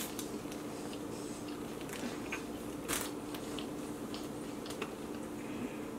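Close-miked chewing and mouth sounds of a burger being eaten, with scattered small wet clicks and a sharper crunch about three seconds in, over a steady low hum.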